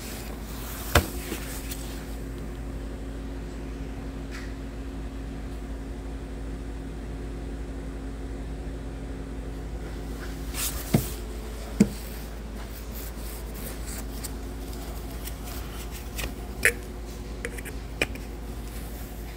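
A few sharp clicks and knocks of gloved hands pulling and unclipping plastic parts and connectors in a car's engine bay, over a steady background hum.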